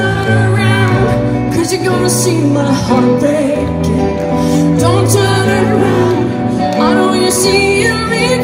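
Live pop music over a large outdoor PA: a female lead singer over keyboards and electric guitar, with steady low bass notes underneath.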